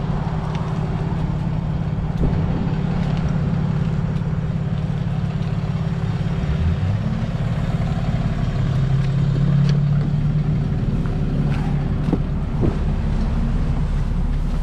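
Truck engine idling steadily, a continuous low hum, with a few light clicks and knocks about twelve seconds in.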